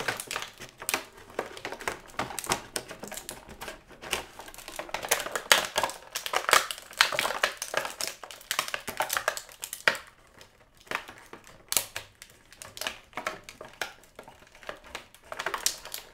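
Plastic action-figure packaging crinkling and clicking in quick, irregular handling as an interchangeable hand is worked free of its plastic tray, with a quieter spell about ten seconds in.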